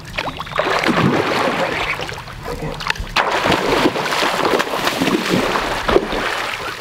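A hooked chinook salmon thrashing at the surface of a shallow river, throwing up heavy, repeated splashes.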